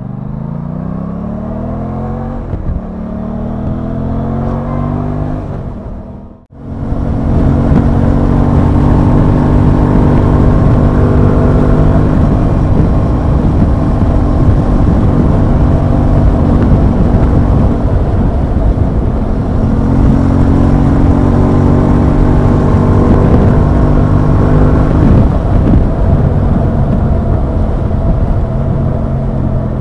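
Aprilia Tuono 660's parallel-twin engine pulling through the gears, its pitch climbing twice. About six seconds in the sound drops out for a moment. Then it comes back louder, the engine running at a steady cruise under heavy wind rush on the microphone.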